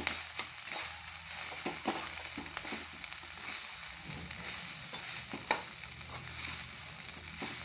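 Metal spatula stirring and scraping a vegetable and soya filling around a hot kadhai, over a steady sizzle of frying. Short scrapes and clinks come throughout, one sharp clink about five and a half seconds in.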